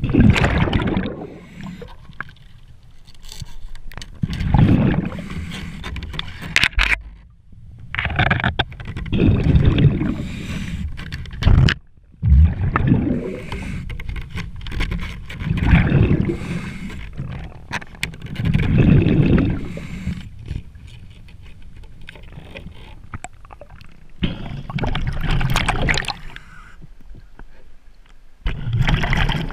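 A scuba diver breathing underwater: exhaled bubbles rumble and gurgle past the microphone in loud swells every few seconds, with quieter water noise between them.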